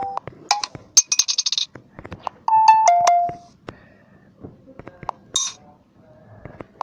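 A string of short electronic phone notification tones played one after another: a brief high trill about a second in, a falling two-note chime near the middle, and a short high blip later, with small clicks between them.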